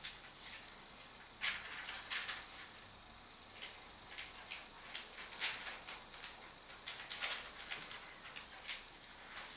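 Paper rustling and crinkling as it is handled: a run of short, irregular, dry swishes.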